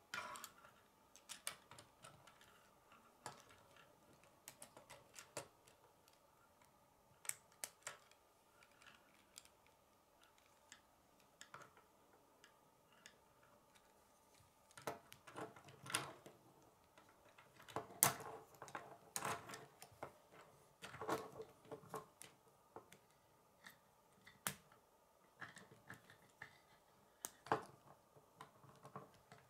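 Plastic K'nex rods and connectors clicking and snapping together as they are handled and assembled. Faint, scattered clicks, with a busier run of louder ones about halfway through.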